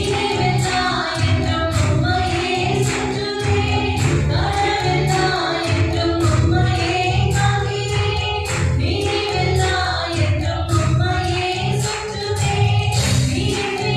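Group of voices singing a Christian worship song over instrumental accompaniment with a steady beat.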